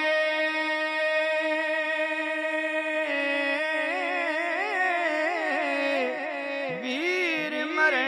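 A man singing Punjabi Sufi kalam through a microphone and PA. He holds one long, steady note for about three seconds, then moves into a wavering, ornamented run of bending pitches.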